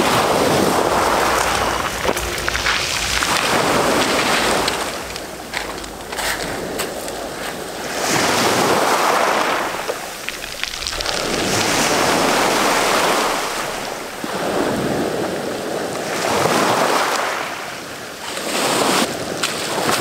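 Small waves breaking and washing up and back over a pebble beach, surging in roughly every four seconds, with the stones clicking and rattling in the wash.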